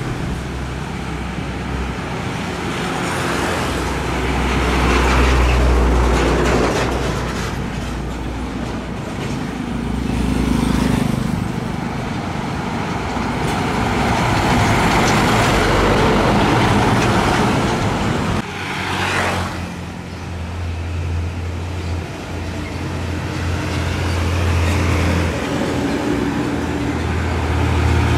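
Heavy diesel trucks driving past in mixed road traffic. Engine drone and tyre noise swell and fade as each vehicle goes by, with a sudden break about two-thirds of the way through.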